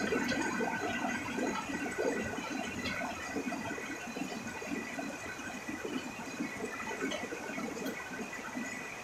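Heavy rain pouring off the eaves of a tiled roof in streams, splashing onto leaves and the ground below. It is a dense, steady wash of water with irregular patters, easing slightly toward the end.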